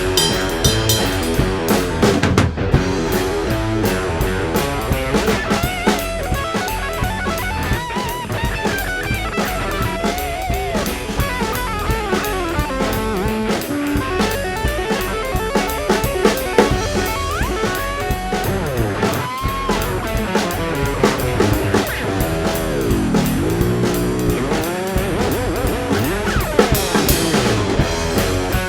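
Rock music: guitar over a drum kit keeping a steady beat, with sliding, bent guitar notes.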